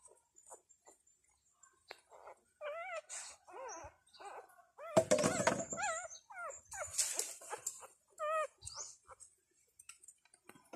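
Newborn puppies crying and squeaking in short, wavering, high calls, one after another from about two and a half seconds in. Faint ticks and scrapes come first, and there is a loud rustling burst about five seconds in.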